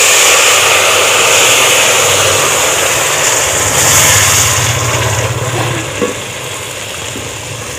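Water poured into a pan of hot frying semolina (sooji), hissing and sizzling loudly as it hits the hot pan and turns to steam. The hiss dies down to a softer sizzle near the end as the halwa is stirred.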